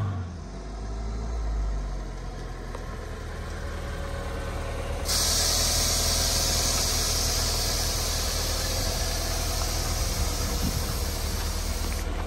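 1990 Chevrolet S10's four-cylinder engine running steadily at low revs as the truck rolls past. A steady hiss joins about five seconds in and cuts off suddenly near the end.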